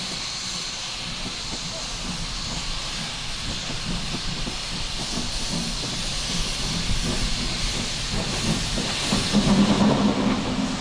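Steam locomotive venting steam: a steady hiss over a low, uneven rumble that swells near the end.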